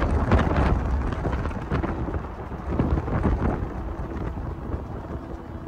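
Wind buffeting the microphone over the road noise of a moving vehicle, a rough low rush that gradually eases off.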